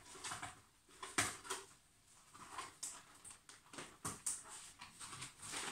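Kit being packed into a hiking rucksack by hand: irregular rustling of fabric and gear with a few sharp clicks and knocks, the loudest about a second in and just after four seconds.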